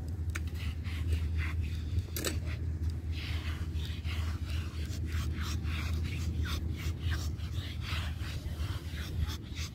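Sandal scuffing and pushing through dry beach sand in a run of short scrapes, about two a second, over a steady low rumble.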